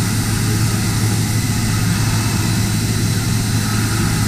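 DMG Mori horizontal machining center running: a steady hiss over a constant low hum.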